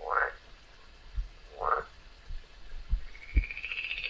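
Frog calling: two short rising chirps, then a long pulsed trill that starts near the end. A few low thumps fall in between.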